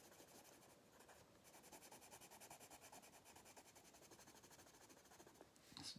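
Faint scratching of a coloured pencil shading on paper, in quick, even back-and-forth strokes.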